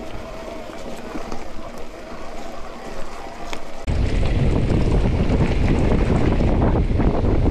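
Wind buffeting the microphone of a handlebar-mounted camera on a moving mountain bike, with trail rumble under it. About four seconds in, the wind noise jumps suddenly to a much louder low rumble and stays there.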